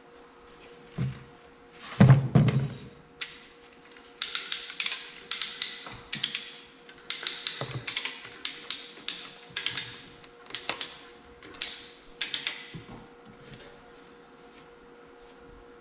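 Hand-tool work on a tractor's cast-iron rear-end housing: one heavy metal thunk about two seconds in, then runs of sharp metallic clicks and clinks several times a second as a wrench works on the bolts.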